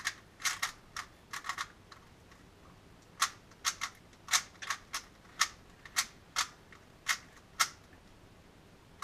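Rubik's Cube being turned during a solve: a string of sharp plastic clicks as the layers snap round, irregular and sometimes in quick pairs, with a pause of about a second around two seconds in.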